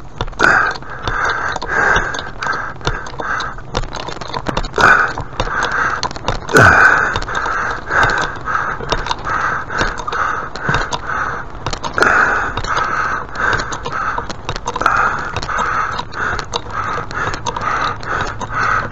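Crows cawing over and over in a steady run of short, harsh calls, about two a second, with a few sharp knocks in between, the loudest about six and a half seconds in.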